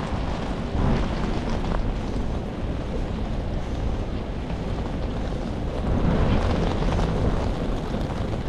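Wind buffeting the camera microphone with a low rumble, over a steady hiss of rain on wet paving. The wind gusts louder about a second in and again from about six seconds.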